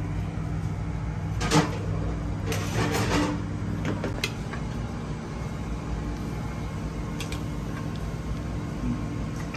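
Steady low machine hum, the running of kitchen equipment, with a few short knocks and clinks as dishes and a serving spoon are handled.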